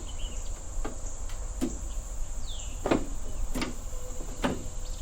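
Scattered light knocks and clicks of metal and tools being worked inside a car door panel while trying to start a door-handle fastener, the loudest about three seconds in. Crickets chirp steadily behind.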